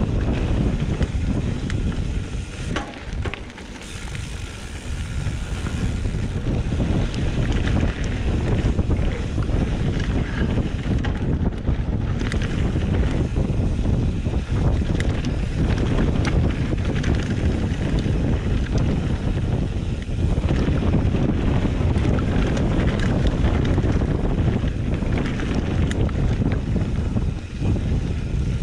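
Heavy wind rush buffeting the microphone at speed: a steady low rumbling roar with a short lull about three to four seconds in.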